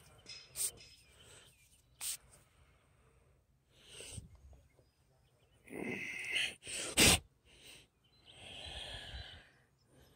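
Handling noises: a few sharp clicks, short breathy rushes of air, and one loud thump about seven seconds in.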